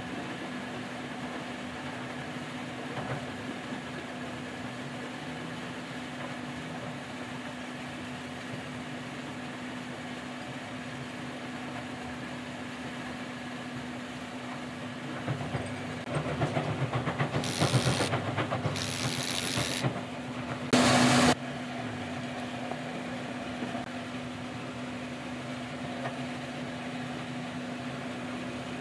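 An aerosol spray can hissing in three short bursts a little past halfway, the last one the loudest, with rough handling noise around the first two. A steady mechanical hum with one held tone runs underneath throughout.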